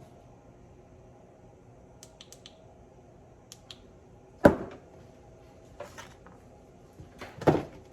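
Metal steering-box parts and tools being handled on a bench: a few light clicks, then two loud knocks, one about halfway through and one near the end.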